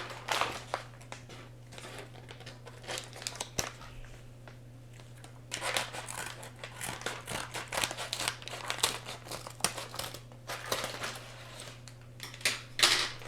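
Packaging being handled and opened around a pop-it fidget toy: irregular crinkling and rustling with some tearing, in bursts, busiest in the middle and again near the end.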